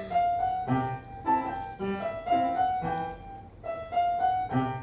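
Piano music: a slow, even melody over sustained chords, a new note or chord sounding about every half second to second.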